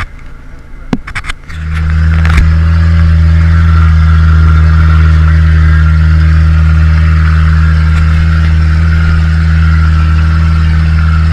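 Engine of a small Suzuki 4x4 running at a steady speed, heard as a loud, even drone inside the cab. It comes in suddenly about a second and a half in, after a few scattered knocks.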